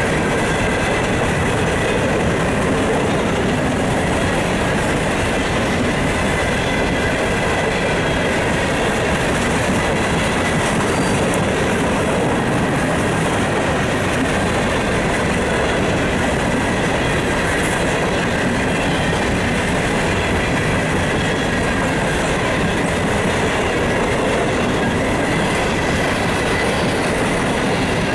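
Norfolk Southern hopper cars rolling past at steady speed: a continuous rumble and clatter of steel wheels on the rails, with a faint thin squeal from the wheels.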